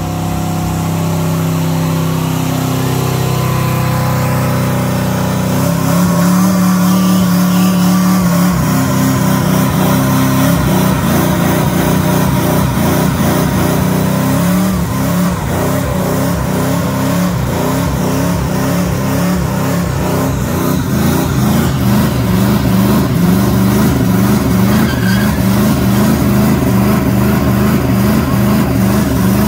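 Mid-1950s Chevrolet pickup's engine held at high revs during a burnout, the tyres spinning in place. The revs climb over the first few seconds, then hold high and waver up and down in quick repeated pulses through the second half.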